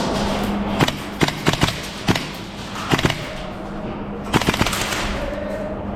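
Airsoft guns firing: about ten sharp cracks, some single and some in quick runs, with a tight burst a little over four seconds in.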